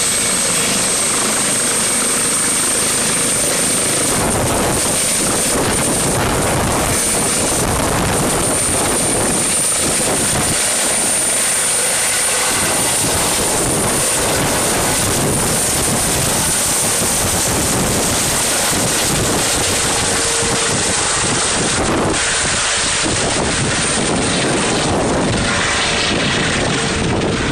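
Eurocopter EC135 helicopter lifting off and climbing away: loud, steady rotor chop with a high turbine whine that rises slightly in pitch in the first few seconds. The sound dulls a little after about twenty seconds as the helicopter gains distance.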